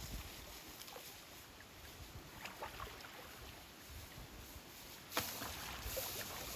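Pond water sloshing and splashing as a man wades knee-deep and pushes a long dead branch through it, faint at first and louder from about five seconds in.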